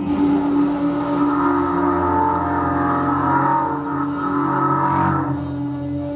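Experimental noise music played live on synthesizer and an invented instrument: a dense, sustained drone of several steady held tones over a noisy low rumble.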